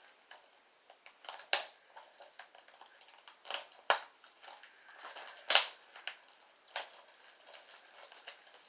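Plastic shrink-wrap on a DVD case crinkling and crackling in irregular bursts as it is handled and pulled off, with a few sharper snaps.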